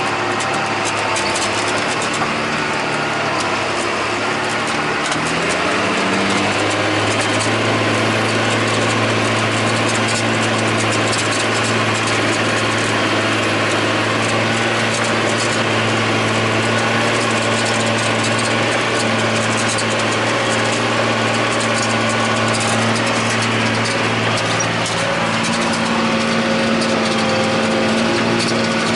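John Deere 8100 tractor's six-cylinder diesel engine running steadily under load while pulling a disk ripper. About six seconds in its pitch rises as it revs up, then holds steady.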